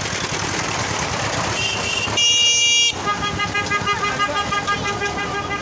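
Crowd hubbub, then a loud vehicle horn blast a little over two seconds in, lasting under a second. It is followed by a rapidly pulsing, horn-like tone that keeps on to the end.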